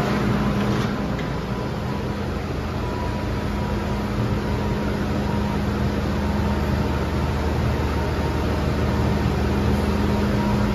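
Steady hum inside a standing MTR M-train carriage, from its air-conditioning and onboard equipment running, with a constant low drone beneath.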